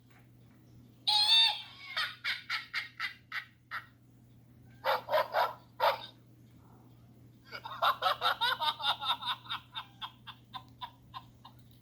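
Prank sound machine playing comic sound effects: three bursts of rapid, stuttering pitched calls, each fading out in quick pulses, with short pauses between them.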